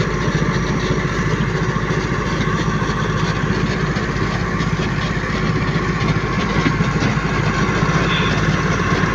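Construction machine's engine idling steadily with a low, even rumble.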